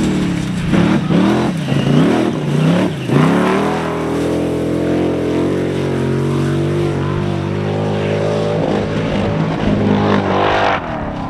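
Formula Offroad buggy's engine revving hard, its pitch rising and falling sharply several times over the first three seconds, then held at a steady high pitch for about seven seconds as it climbs the dirt slope, changing shortly before the end.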